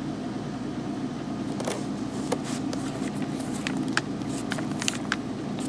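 Palette knife spreading acrylic gel medium over card stock: scattered faint clicks and scrapes over a steady low background hum.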